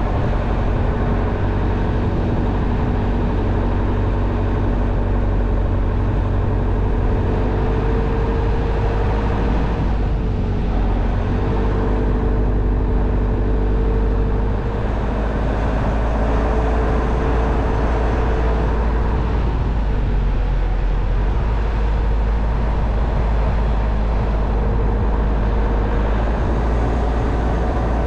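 Car engine running steadily while driving up a steep road, with continuous road noise; its pitch drifts gently, easing about ten seconds in and again about twenty seconds in.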